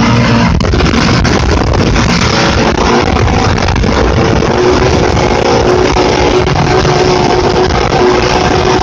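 Rock music with guitar, playing steadily and loud.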